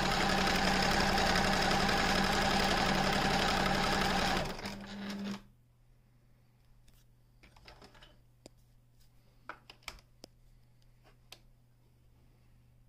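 Pfaff Creative 1469 computerized sewing machine running at a steady speed, stitching through fabric, then stopping about five seconds in. After it stops there are only a few faint scattered clicks.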